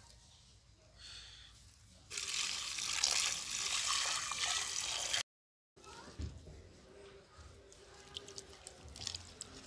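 Tap water pouring into a plastic bucket of onions and chives, starting about two seconds in and cutting off suddenly about three seconds later; then quieter splashing and sloshing as a hand washes the onions in the water.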